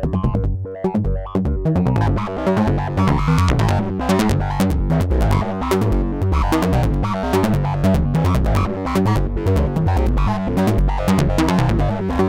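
Make Noise Eurorack modular synthesizer playing a fast sequenced pattern of short notes that step up and down in pitch several times a second, with its oscillators ring-modulated through the Modumix.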